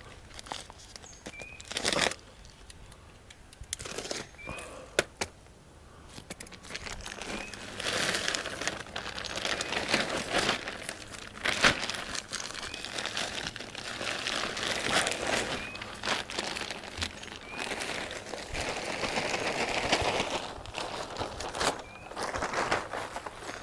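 Plastic bags of garden soil being handled and emptied: crinkling and rustling of the plastic, with scattered knocks in the first several seconds, then longer stretches of crinkling from about eight seconds in.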